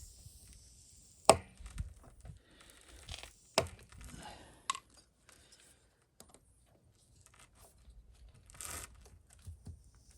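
Hand tools knocking and scraping against a tire while a nail is worked out of the tread: a few sharp clicks, the loudest about a second in, scattered light ticks, and a short scrape near the end.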